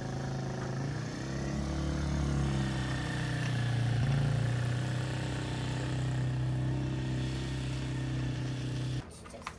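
Small off-road vehicle engine running at a steady speed, a little louder around four seconds in, cutting off suddenly near the end.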